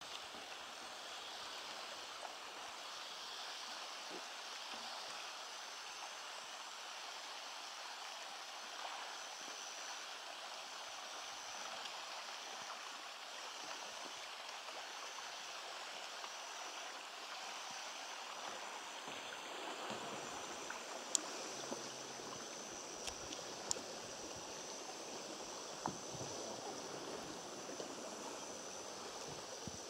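Steady ambience of a slow jungle river: an even hiss of water with a thin, steady high tone running through it. A few sharp clicks come in the last third.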